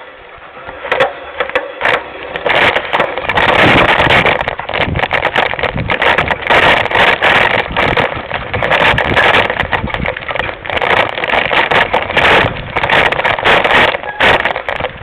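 Mountain bike clattering down a rough dirt trail: a dense rattle of tyres, frame and chain over bumps and roots, full of sharp knocks, starting about a second in and coming in uneven surges.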